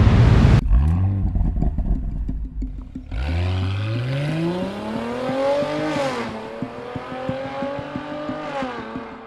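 Porsche Cayenne 3.0T's turbocharged V6 through an Xcentric aftermarket exhaust. After a loud rushing noise that cuts off suddenly, the engine gives a short rev and runs at idle. Then the SUV pulls away at full acceleration: the exhaust note climbs steadily, drops at an upshift near the middle, climbs again and drops at a second shift near the end, fading as the car drives off.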